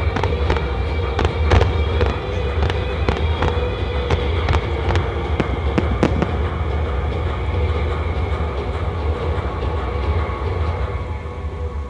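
Japanese fireworks display: a quick, irregular run of sharp bursts and bangs over the first six seconds or so, thinning out after that, over a steady low rumble.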